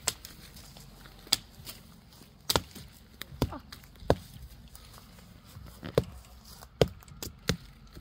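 Thin sapling trunks being chopped by hand: about ten sharp wooden knocks at irregular intervals, some coming in quick pairs.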